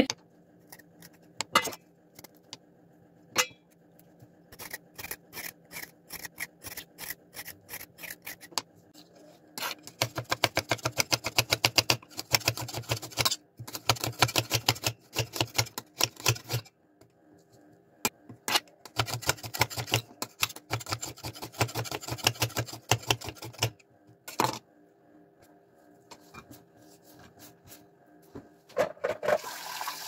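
Kitchen knife chopping carrots on a cutting board: three quick, even runs of knife strokes with pauses between them. Tap water starts running near the end.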